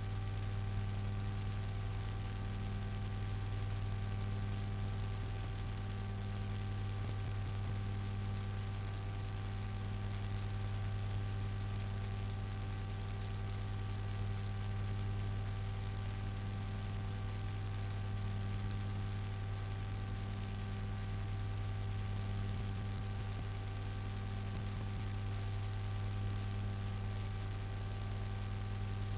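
Steady electrical mains hum with a layer of even hiss in the camera's audio feed. It is a constant low drone with fainter steady overtones above it and does not change.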